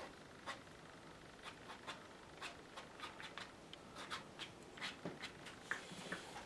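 Soft, scratchy strokes of a brush on watercolour paper, short and irregular, coming more often in the second half.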